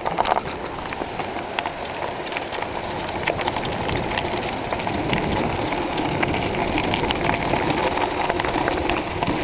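Mountain bike tyres crunching over a loose gravel path, a dense patter of small clicks and rattles that grows gradually louder.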